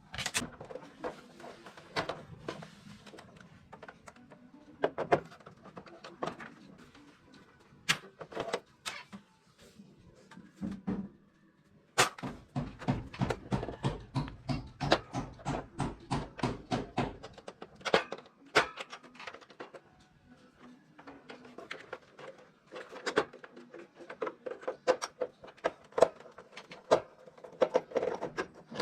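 Irregular sharp clicks and knocks from hands working on a split air conditioner's indoor unit, with a run of fast, even knocks lasting about five seconds from about twelve seconds in.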